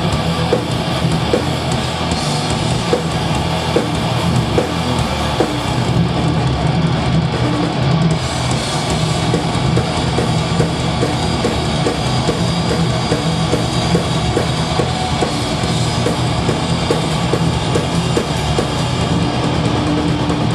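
Death metal band playing live: distorted electric guitars and bass chugging over a drum kit at full volume.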